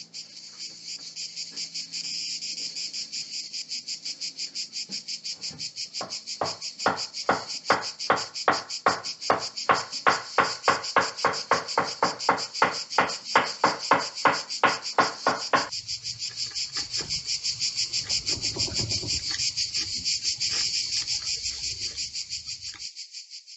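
Crickets chirping steadily in a dense high trill. From about six seconds in to about sixteen seconds, a run of sharp, evenly spaced knocks, about three a second, sounds louder over the trill.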